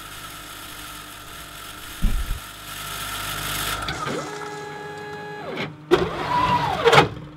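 DS2 automated ELISA plate processor running at the end of its wash cycle, with steady pump and machine noise and a thump about two seconds in. In the second half its electric motors whine in short moves, the last one rising and falling in pitch before stopping.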